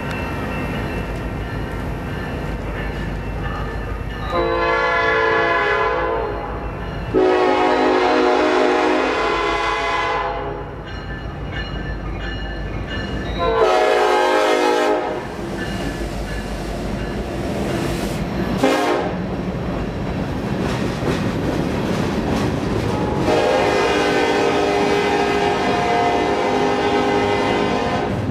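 Union Pacific diesel freight locomotive sounding its air horn in the grade-crossing pattern: two long blasts, a short one, then a final long blast, with the low rumble of its diesel engines throughout as it approaches and passes. Near the end the freight cars rattle and clack over the rail joints as they roll by.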